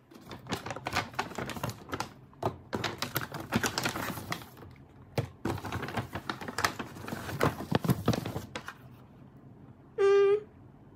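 Cardboard supplement boxes and paper packaging being handled and opened: a rapid run of clicks, taps and rustles that stops about eight and a half seconds in. Near the end a short steady pitched tone sounds, the loudest thing here.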